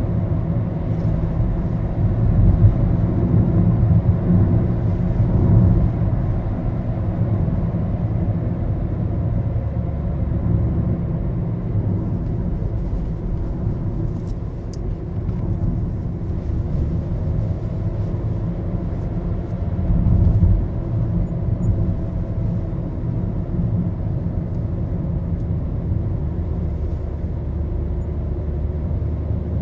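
Maruti Suzuki Baleno being driven, heard from inside the cabin: a steady low engine and road rumble with a faint engine hum, swelling briefly about twenty seconds in.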